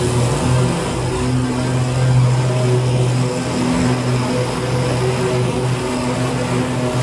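BigDog Trooper stand-on mower's engine running steadily at working speed while mowing tall weeds, a continuous drone with small shifts in pitch as the load changes.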